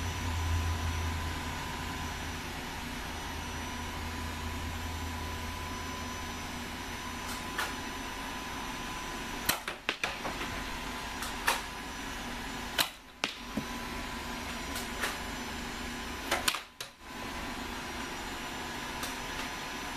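Foam dart blasters firing in a Nerf battle: about ten sharp clicks and snaps, scattered and irregular, some in quick pairs, over a steady background hiss. A low hum fades out in the first few seconds.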